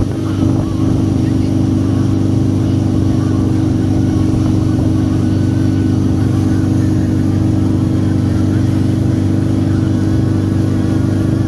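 Boat engine running at a steady speed, a constant droning hum with no change in pitch.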